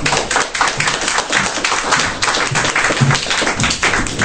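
Audience applauding: many people clapping at once, a dense, steady patter of claps.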